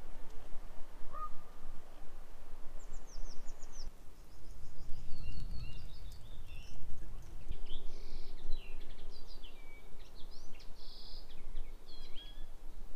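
Outdoor ambience of small birds chirping and twittering in quick high notes, with a lower call about a second in, over a steady low rumble that swells about five seconds in.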